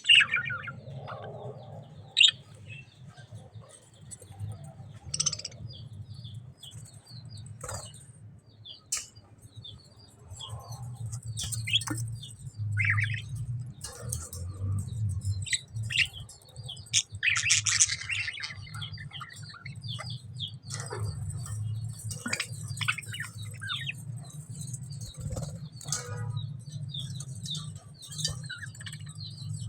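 A flock of budgerigars chirping together in a dense, overlapping run of short chirps, over a steady low hum.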